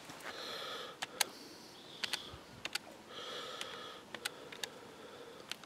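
Fingers pressing the plastic keys of a desktop electronic calculator: about eight irregular sharp clicks, with a few audible breaths in between.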